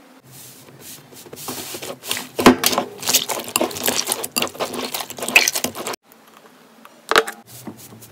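Slime being squeezed and kneaded by hand in a bowl: rapid crackling and popping clicks and squishes. Near six seconds in, the sound drops to a quieter stretch, with one sharp pop soon after.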